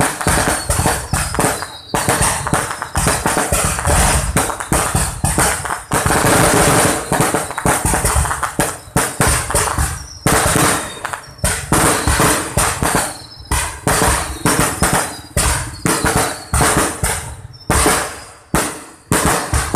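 Aerial fireworks display: shells and comets launching and bursting in fast volleys, a dense run of bangs and crackles with only brief gaps, and now and then a thin whistle.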